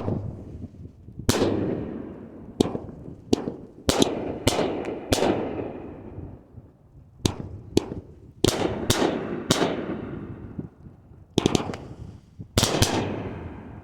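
A 12-shot, 500-gram consumer fireworks cake firing: a series of loud, sharp bangs at uneven spacing as shells launch and burst, each bang trailing off in a rolling echo. A few come in quick pairs near the end.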